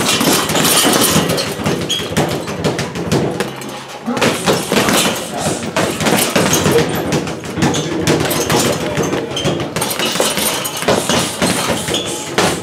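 Boxing gloves landing in rapid flurries on a hanging teardrop punching bag: a dense run of thuds and slaps, with voices in the background.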